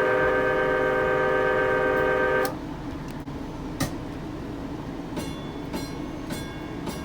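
A Nippon Sharyo P865 light rail car's horn sounds a loud, steady multi-tone chord and cuts off suddenly about two and a half seconds in. After a pause with one click, the car's warning gong starts striking about twice a second with a ringing tone.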